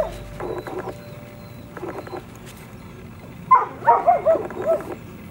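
Seven-week-old German Shorthaired Pointer puppy yipping in short high bouts, with a quick run of yaps near the end.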